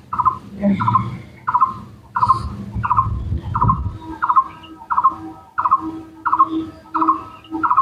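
A short bird-like chirping call repeating very steadily, about one and a half times a second. From about four seconds in, a lower pulsing tone keeps time with it.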